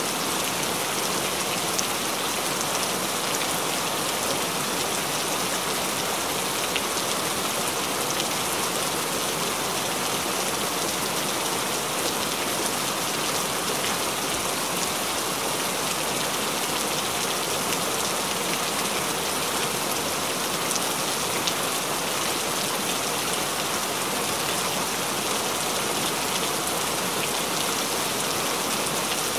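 Steady rainfall: an even hiss of many drops landing on a wet surface, with a few single louder drop ticks standing out.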